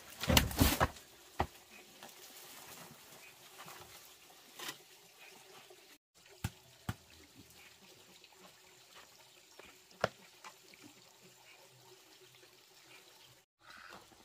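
Loose soil tipping out of a woven bamboo basket onto a dirt floor, a short rush of pouring earth within the first second. It is followed by a few scattered light knocks and clicks.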